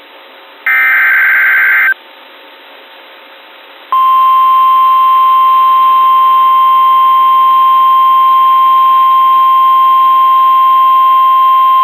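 NOAA Weather Radio SAME alert header: a buzzy digital data burst lasting about a second. About two seconds later the steady 1050 Hz weather-radio warning alarm tone starts and holds unbroken. It is the signal that a new warning is about to be broadcast.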